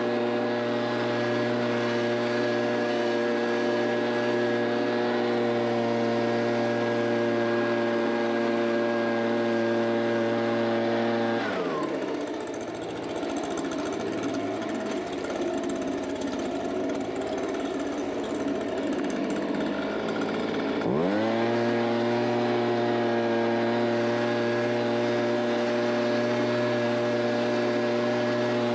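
Handheld leaf blower running at full throttle with a steady whine. About eleven seconds in the throttle is let off and the pitch falls away; some nine seconds later it is opened up again and the pitch climbs back to its steady level.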